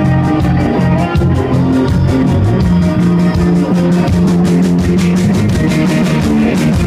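Live band playing loud: electric guitars over a steady drum beat.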